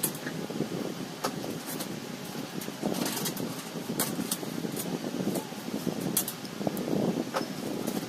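Scattered light clicks and taps, as of tools and small parts being handled during a chainsaw repair, over a steady low rumbling background noise.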